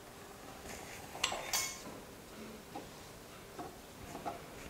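Kitchen utensil clicks on a wooden board while a thin wheat-flour dough sheet is cut with a wheel pizza cutter: two sharp clicks a little over a second in, then a few faint taps as the sheet is handled.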